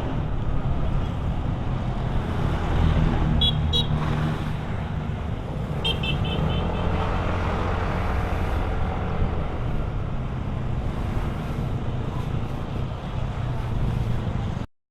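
Steady road and engine noise heard from a moving motorbike in traffic. Two short bursts of high pulsed beeping come about three and a half and six seconds in.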